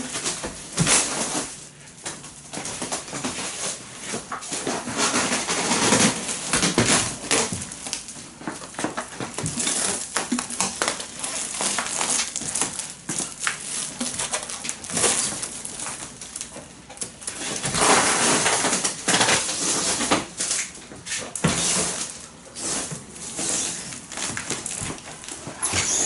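Plastic stretch wrap film pulled taut off a hand-held roll and wound around a cardboard shipping box: an irregular, on-and-off rustling crackle of the stretching film.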